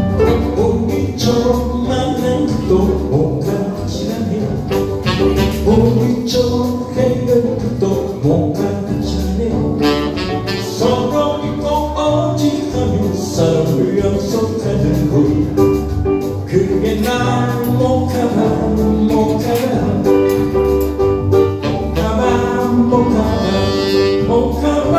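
Live band music: a saxophone playing the melody over electric guitar and keyboard, with a steady low beat underneath.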